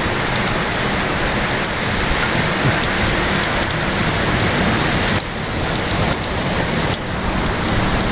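Steady wash of surf mixed with wind noise on the microphone, with fine crackling throughout; the noise eases for a moment about five seconds in and again near seven seconds.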